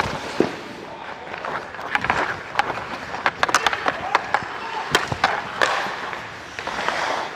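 Ice skate blades scraping and carving on the ice, with repeated sharp clacks of hockey sticks and puck, heard close up on a player's body mic.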